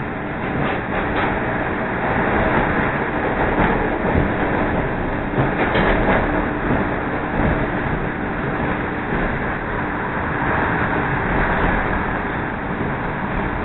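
CTA Red Line rapid-transit train pulling out of a station and gathering speed, heard from inside the car. It is a steady rumble of wheels on rail with a low, steady hum and occasional clicks at rail joints.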